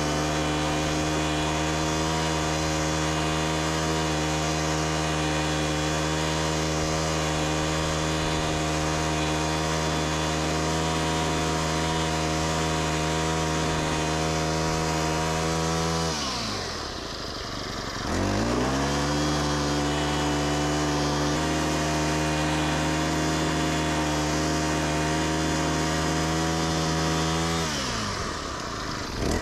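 Honda GX35 four-stroke engine on a lawn edger running steadily at high revs. About two-thirds of the way through, the revs drop sharply and climb back, and they dip again near the end.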